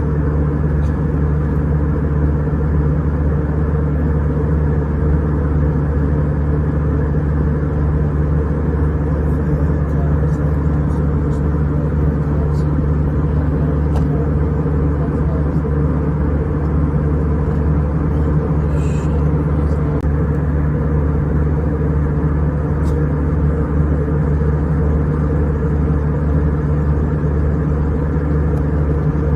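Steady drone inside an airliner cabin at cruise: jet engine and airflow noise, with no change in level.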